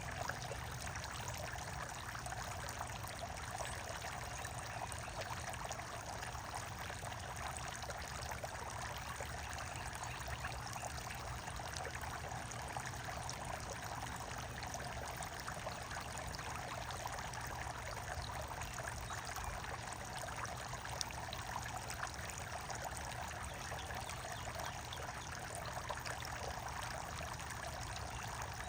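Running water pouring and trickling steadily, with fine splashy crackle and no change through the stretch.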